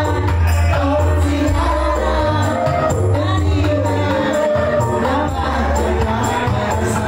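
Live band playing a slow pop-rock ballad: a man singing into a microphone over electric guitar and bass, with a steady beat.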